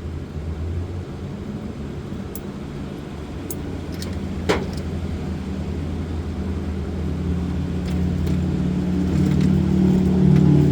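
A steady low engine hum, like an idling vehicle, that grows louder toward the end. There is one sharp click about four and a half seconds in.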